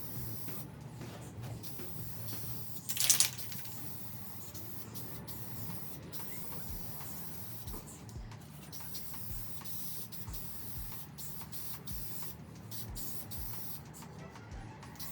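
Pressure washer spraying water onto a van's loadbed liner: a steady hiss that breaks off briefly now and then, with one loud burst of spray about three seconds in.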